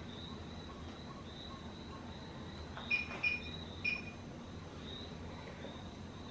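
Faint, high cricket-like chirping from the built-in speaker of a projector nightlight sound machine. About three seconds in come three short, brighter chirps.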